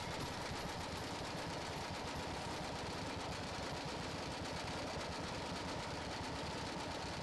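Go-kart engine running steadily at speed, an even fast buzz heard from the kart's own onboard camera, mixed with a steady rushing noise.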